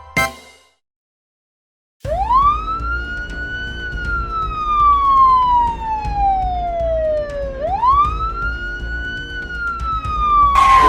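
Police siren wailing, starting about two seconds in: each cycle rises quickly, then falls slowly over several seconds, twice, over a steady low rumble. A short noisy burst comes near the end.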